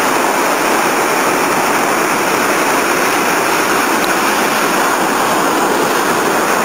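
Sea surf breaking and washing over shore rocks: a loud, steady rush of churning water.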